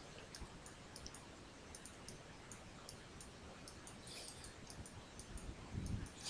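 Faint, scattered clicks of a computer mouse over a low background hiss.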